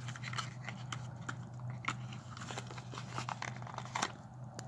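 Light clicks, taps and crinkles of small cosmetic packaging being handled, a few every second, over a steady low hum.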